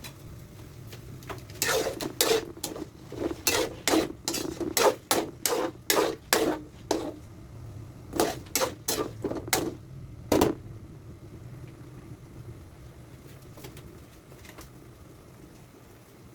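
Kitchen utensils and cookware clattering: a run of about twenty sharp, irregular knocks and clinks that stops about ten seconds in.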